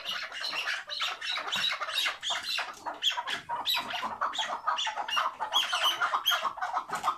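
Caged chukar partridges calling in a rapid, unbroken chatter of short harsh notes. This is the 'hıngırma' call that Turkish keepers prize.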